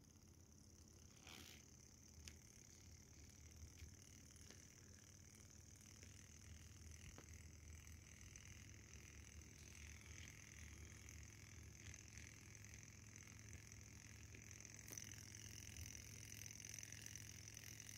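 Near silence, with the very faint running of a Kontax Manson-type hot air engine, a soft chuff from its exhaust, very nearly silent. A light click about a second and a half in.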